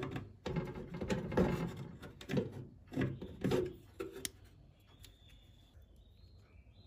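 Needle-nose pliers bending back a metal tab and working a plastic door-latch piece free from a microwave's metal frame: a run of clicks, knocks and scraping of metal on plastic for about four seconds, then much quieter.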